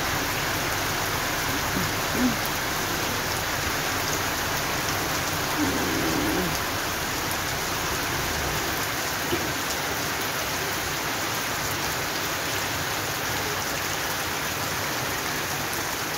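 Heavy rain falling steadily onto a paved road and the puddles and runoff covering it, a constant hiss. A couple of short, slightly louder sounds rise above it about two and six seconds in.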